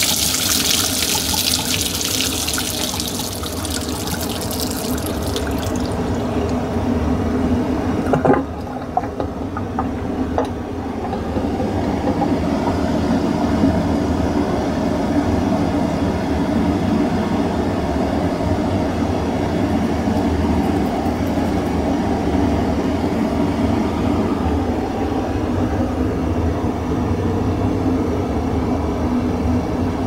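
Haier HDC1804TW portable dishwasher pumping out its dirty wash water, which gushes from the faucet adapter into a stainless steel sink and tapers off about six seconds in. A couple of knocks follow, then the machine runs on with a steady hum.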